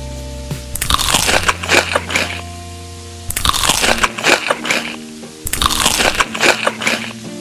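Crisp food being bitten and crunched close to the microphone, three loud crunchy bursts of about a second each, over background music with held notes.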